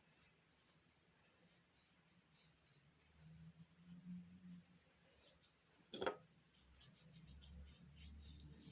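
Faint, irregular scratchy rubbing of a gritty baking soda paste being massaged over the skin of a hand in circles, with one sharp knock about six seconds in.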